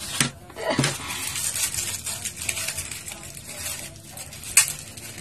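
Hands handling things at a white plastic bowl: light taps, scrapes and rustles, with two sharp knocks near the start and a louder sharp click about four and a half seconds in.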